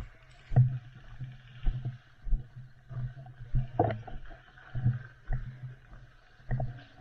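Dull thumps with short knocks, roughly every half second to a second and unevenly spaced, like a player's footsteps and jostling gear picked up by a body-worn microphone, over a faint steady hiss.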